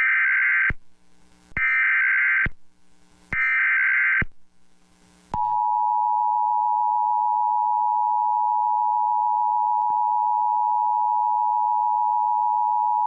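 Emergency Alert System signal: three SAME header data bursts, each a harsh digital screech of about a second, then the steady two-tone attention signal held for about eight seconds. It marks the start of a new alert, here a severe thunderstorm warning.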